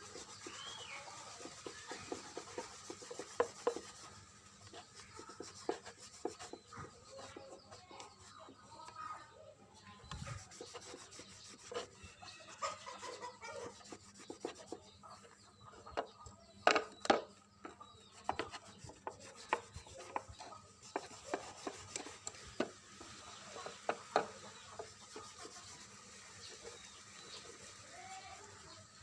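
Irregular rubbing and scraping of hand work on an object, broken by scattered clicks and light knocks. The sharpest knocks come close together about 17 seconds in.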